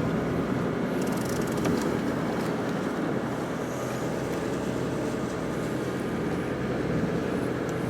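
Sport-fishing boat's engine running steadily, a constant low hum under wind and water noise.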